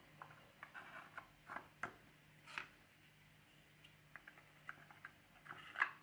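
Small wooden drawers being slid into and fitted in a miniature wooden chest of drawers: faint, scattered taps, clicks and short scrapes of wood on wood, the loudest a knock near the end.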